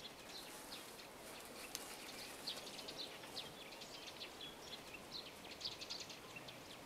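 Faint outdoor ambience with small birds chirping now and then in short, high calls.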